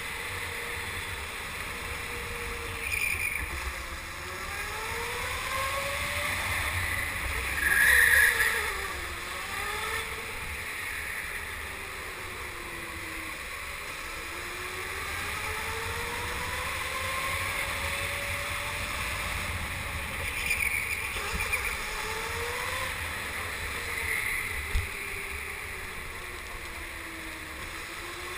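Go-kart motor running on the track, its whine rising and falling in pitch as the kart speeds up on the straights and slows into the corners, over a steady low rumble of wind on the onboard camera. A short louder hiss comes about eight seconds in, with smaller ones around three and twenty seconds in.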